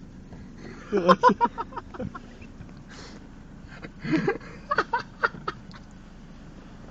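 Men inside a car laughing and sniggering in short bursts, once about a second in and again from about four to five and a half seconds in, over a low steady hum.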